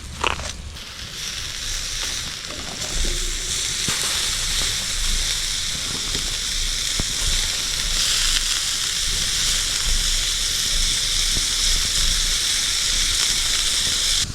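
Sausages sizzling on a grill over a campfire: a steady frying hiss that builds over the first few seconds and then holds, with a few faint crackles.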